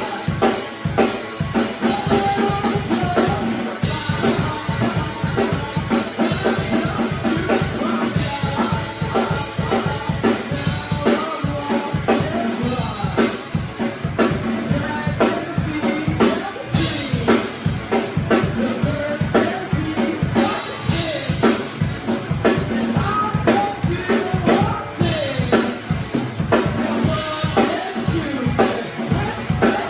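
A rock band playing a song live: a drum kit keeps a steady beat with bass drum and snare under amplified instruments.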